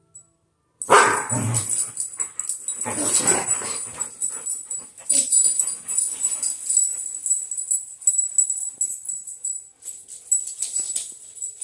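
Dogs barking excitedly, with the loudest barks about a second in and again around three seconds in, followed by lighter barking and scuffling.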